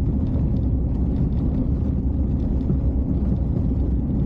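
2500HD pickup truck heard from inside the cab while driving: a steady low engine and road rumble.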